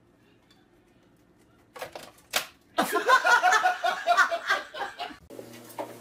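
A few sharp knocks about two seconds in, then a loud burst of human laughter lasting about two and a half seconds. Near the end a steady low hum starts.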